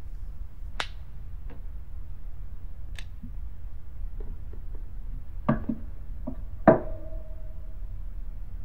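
Several sharp clicks and knocks of small hard objects being handled, spaced out at first and then bunched. The loudest comes near the end as a clink that rings on for about a second. A steady low hum lies underneath.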